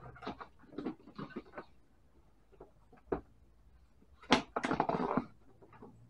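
Fat-bike tire bead being worked over the rim by hand: scattered scratchy rubbing and clicks of rubber and plastic against the wheel rim, with a denser stretch of scraping about four seconds in.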